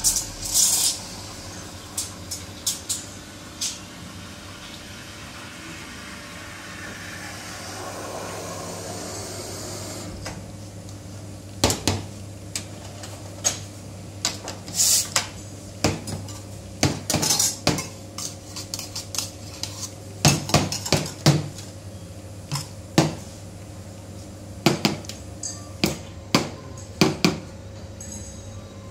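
Espresso machine running with a steady hum while a shot is pulled. From about eleven seconds in, frequent short clinks and knocks of cups and metal parts are heard.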